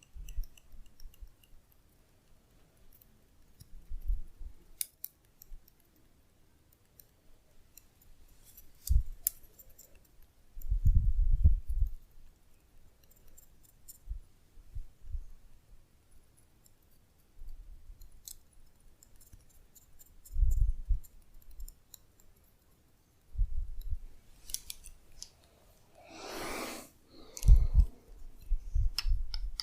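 Massage by hand: scattered dull thumps and sharp clicks as hands work over the head and neck, with a brief hissing rush near the end.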